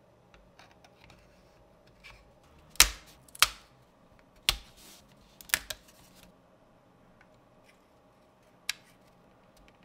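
Thin laser-cut plywood model parts handled, with about six sharp wooden snaps as pieces are popped out of their sheet and pressed together. The loudest two snaps come about three and three and a half seconds in.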